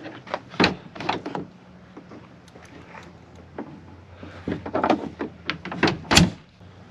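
Pickup truck's tailgate and doors being worked by hand: a few clunks and latch clicks, then a cluster of knocks and a sharp slam about six seconds in as the tailgate is pushed shut.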